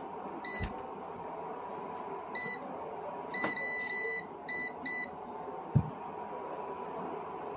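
A series of short, high electronic beeps at irregular intervals over the first five seconds, one held longer than the rest, over a faint steady hum; a brief low thud follows about six seconds in.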